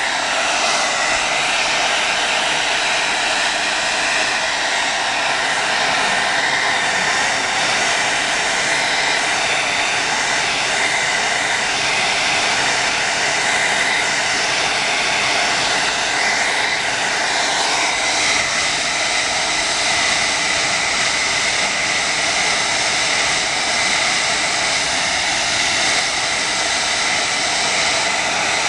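Hand-held blow dryer running steadily: an even rushing of air with a faint steady whine.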